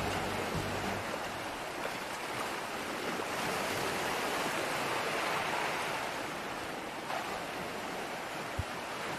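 Sea surf washing against a rocky shore, an even rushing that swells gently in the middle. Background music fades out in the first second.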